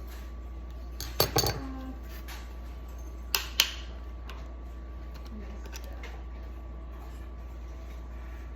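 Hard objects being handled: a quick cluster of sharp clinks and knocks about a second in, then two more clinks about three and a half seconds in, over a steady low hum.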